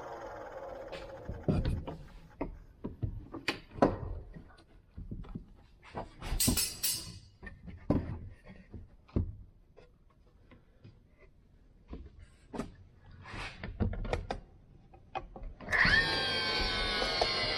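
Wooden boards being handled in a workshop: scattered knocks, clicks and rubbing with quiet gaps between them, and a short hiss about six seconds in. Near the end a steady sound with several pitched tones starts abruptly and keeps going.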